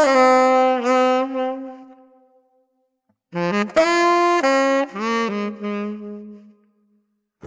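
Unaccompanied jazz saxophone playing two short phrases, each ending on a held note that fades away, with a brief silence after each.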